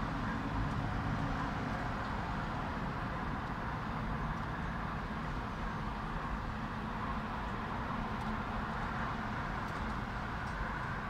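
Steady hum of distant road traffic, with no clear birdsong.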